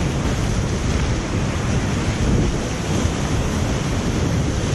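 Whitewater rapids rushing around a kayak: a loud, steady roar of churning river water, with wind noise on the microphone.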